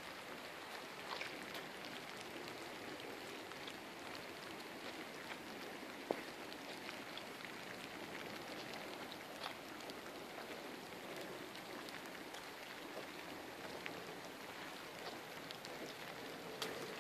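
Steady light rain falling, with scattered drops ticking on hard surfaces and a few sharper drips near the end.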